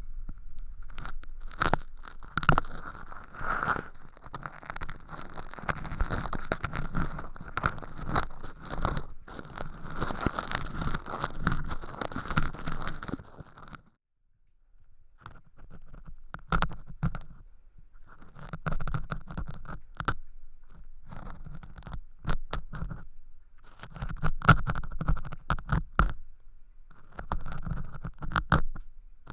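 Ear-cleaning tools scraping and crunching thin, crispy sawdust-like flakes inside the ear of a homemade binaural microphone, heard up close. The first half is dense, continuous crackling that stops abruptly about halfway through. After a moment of near silence it resumes as separate short scraping strokes.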